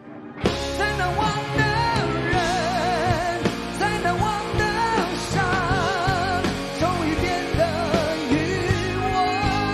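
Live rock band with acoustic and electric guitars, drums and keyboards coming in about half a second in after a brief hush, under male singing with a wavering vibrato on held notes.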